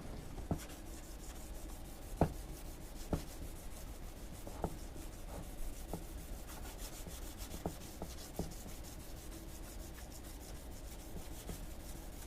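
Hand wet sanding of a plastic headlight lens with a sanding block on its first, coarsest grade: a soft, steady rubbing with scattered light clicks.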